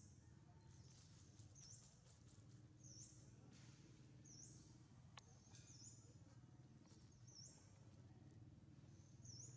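Faint bird calling: a short, high chirp repeated about once a second over a low steady hum, with a single sharp click about five seconds in.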